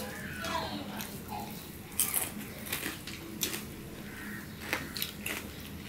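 People eating rice and curry with their fingers: quiet chewing and mouth sounds with several short, sharp clicks and smacks of fingers and food against plates.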